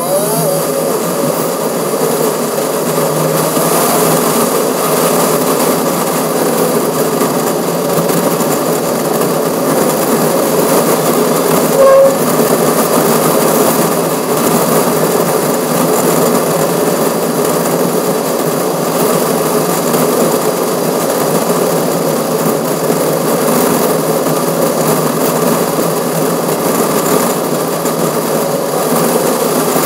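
Steady wind and road noise from a moving car, picked up by a camera mounted on the front grill, a loud, even rush with a constant droning tone in it. A brief louder tone sounds about twelve seconds in.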